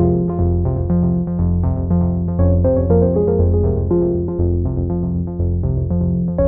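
Background music on synthesizer and electric keyboard: a quick, even run of short notes over held bass notes.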